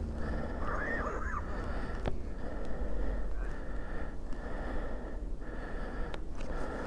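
Wind rumbling on the microphone, with a person breathing and a few small clicks.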